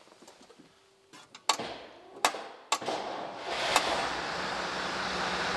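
A few sharp clicks, then the Routemaster bus's diesel engine starts about three seconds in and settles into steady running. The engine is run to build the hydraulic braking system up to pressure.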